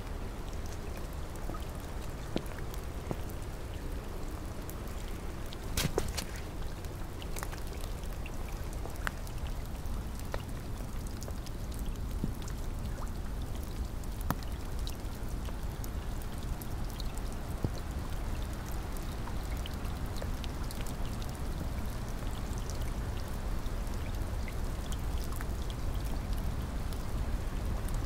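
Steady rain falling, with many separate drops ticking close by over the even hiss of the downpour and a short louder spatter about six seconds in.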